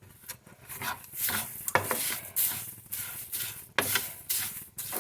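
A spoon stirring and scraping rice grains and spices as they roast in a pan, in short repeated strokes about every half second.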